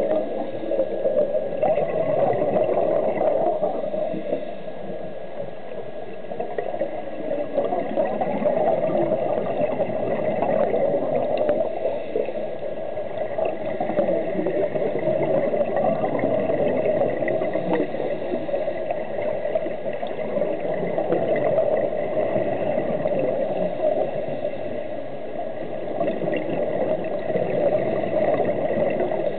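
Underwater bubbling and gurgling from scuba regulators as divers breathe, swelling and fading every several seconds with each breath.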